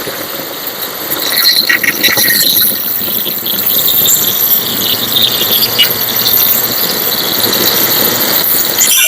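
Angle grinder cutting into the steel body of an original Yamaha RX-King exhaust, running with a continuous high squealing whine and grinding hiss that grows louder about a second in as the disc bites.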